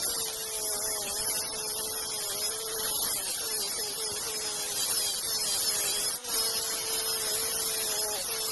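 Saw driven by a 0.5 HP electric motor ripping teak wood: a steady hissing cut with a whining tone whose pitch dips and wavers as the blade is loaded.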